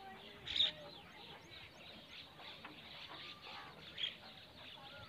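Quiet outdoor background with a few short, high bird chirps, one about half a second in and another near four seconds.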